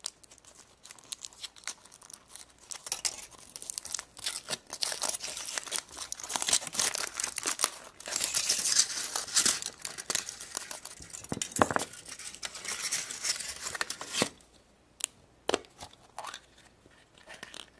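Thin aluminium foil wrapper being torn and crinkled off a chocolate surprise egg, a dense crackling that gets louder around the middle and stops about 14 seconds in. A few separate clicks follow.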